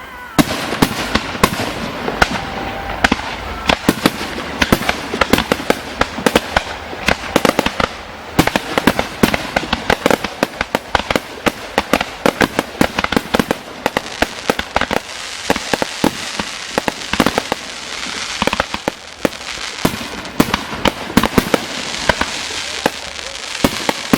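Fireworks display: a dense, unbroken barrage of shells bursting, many sharp bangs and crackles every second.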